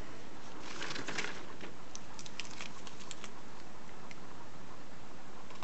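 A brief rustle about a second in, then a scatter of light clicks over a steady background hiss.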